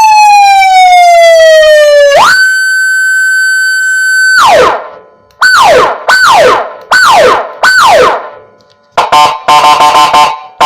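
Echo Gamma 45 W electronic siren module sounding through a 10 W horn speaker, stepping through its tones. First a slow falling wail, then a steady high tone held for about two seconds, then four quick falling whoops. Near the end comes a rapid stuttering, horn-like tone.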